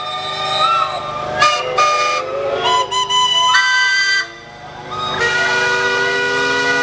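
Many steam traction engine whistles blowing at once in a mass whistle blow, a chorus of overlapping held tones, some sliding in pitch. About four seconds in they briefly drop away, and then a fresh set of whistles starts up on steady pitches.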